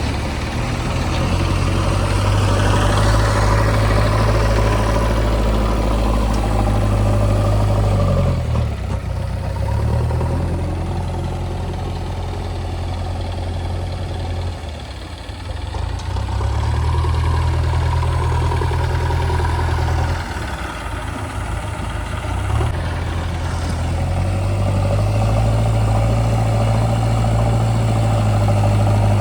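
Diesel engine of a JCB 3DX backhoe loader running under working load while digging and loading mud. Its low note sags and picks up again several times as the hydraulics are worked, and a faint rising whine comes in briefly near the start.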